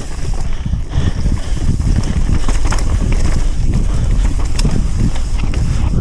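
Mountain bike riding a downhill bike-park trail: wind buffeting the microphone over a dense rumble of tyres on the ground, with scattered sharp rattles and clicks from the bike.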